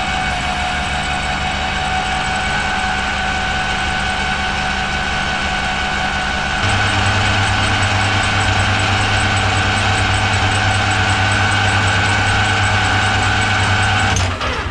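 Metal lathe running steadily while facing and drilling a piece of scrap stock. About halfway in it gets louder, with a deeper hum and a fast, even ticking, as the cut takes hold. It stops just before the end.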